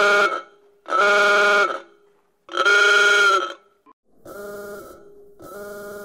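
Truck horn sounding three blasts of about half a second to a second each, the pitch sagging slightly as each one ends. About four seconds in, a much quieter, lo-fi altered copy of the horn sounds twice.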